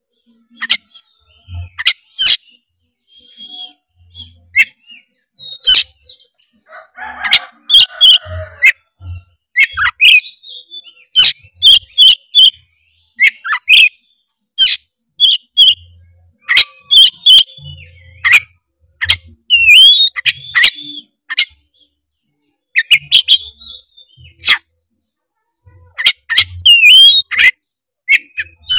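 Oriental magpie-robin (kacer) singing: loud, sharp whistled notes and chirps delivered in quick bursts with short pauses between phrases, some notes sweeping up and down in pitch.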